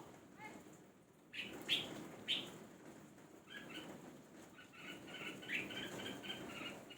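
Red-whiskered bulbul calling excitedly: three loud sharp calls about a second in, then a rapid run of chattering chirps through the second half.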